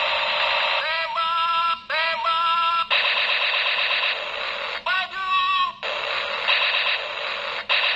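Red plastic toy space pistol's electronic sound effects: repeated bursts of shrill synthesized zaps and warbling siren tones, each about a second long. Several open with a quick rising swoop, and two longer warbling stretches come in the middle and near the end.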